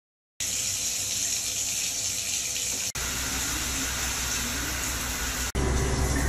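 Handheld shower head spraying water: a steady hiss that starts about half a second in, breaks off twice for an instant, and turns deeper and louder near the end.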